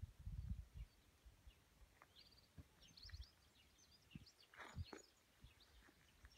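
Faint outdoor ambience of small birds chirping in short, scattered calls, with low rumbles in the first second.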